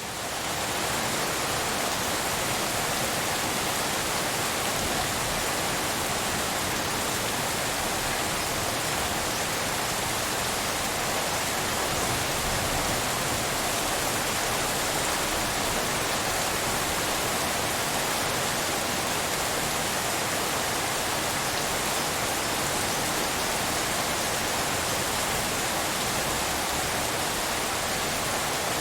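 Steady rain shaped as pink noise: a dense, even hiss with no separate drops. It swells up in the first second.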